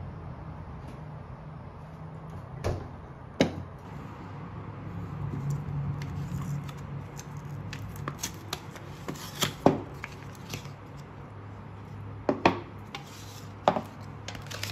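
Paper sleeves being peeled and torn off yogurt pots with a crinkling rustle. Several sharp knocks come as the pots are handled and set down on a wooden table.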